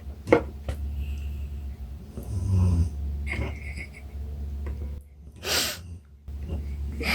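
A man snoring in his sleep, with one low rasping snore about two and a half seconds in, over a steady low hum. A short hiss comes a little past halfway, and a sharp click sounds just after the start.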